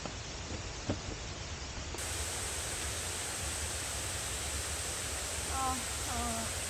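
Steady hiss of heavy rain falling, with a light knock about a second in.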